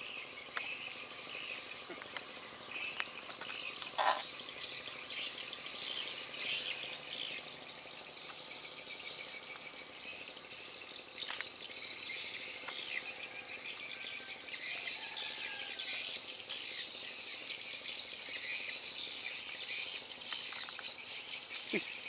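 A steady, high-pitched chorus of insects chirping, with bird chirps mixed in and a couple of brief clicks.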